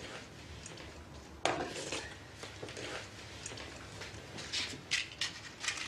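Crockery and cutlery clinking and knocking lightly as things are handled in a kitchen: one firmer knock about a second and a half in and a run of small clicks near the end.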